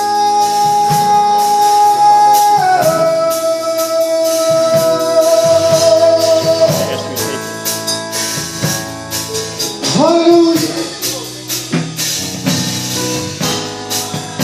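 Live gospel praise band playing, with drum kit and guitar under long held notes that step down in pitch once and swoop up again partway through.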